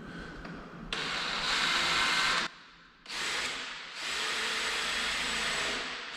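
Power drill boring a 1-inch hole through a door. It starts about a second in, stops briefly, and then runs again in a shorter burst and a longer steady stretch.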